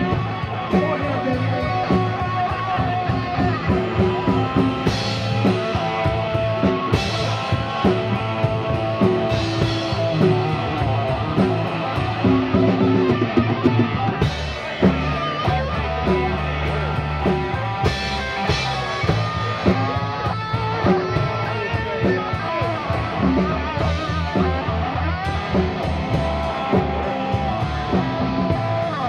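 Live rock band playing loud and steady: electric guitars, bass guitar and drum kit.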